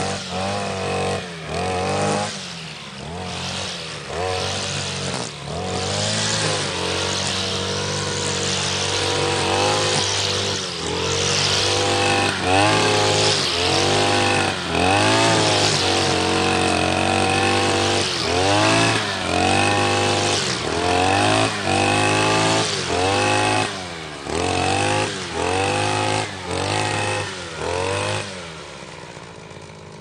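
Grass trimmer cutting grass, its motor revving up and falling back over and over, about once a second, with a stretch of steadier high running in the middle. It fades out near the end.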